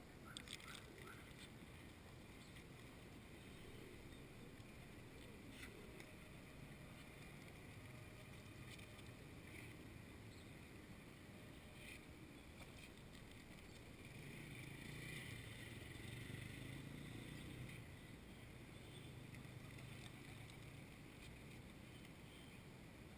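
Near silence: a faint low outdoor hum, with a few soft clicks and wing flutters from feral rock pigeons pecking and flapping close by, most of them in the first second.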